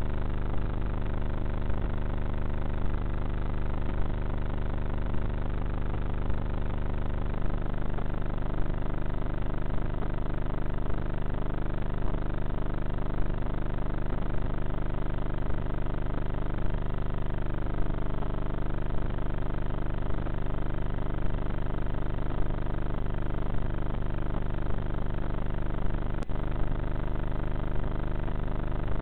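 Bixler RC foam plane's electric motor and pusher propeller, heard from the onboard camera: a steady drone of several held tones that waver in pitch a little past halfway. A brief sharp click sounds near the end.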